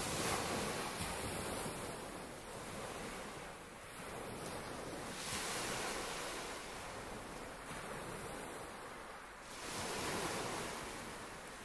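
Small waves breaking and washing up a shingle beach, swelling and fading about every four to five seconds.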